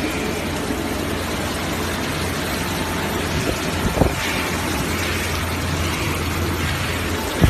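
QX-Z1000 sesame washing machine running: a steady low motor hum under an even rushing noise, with a single knock about four seconds in.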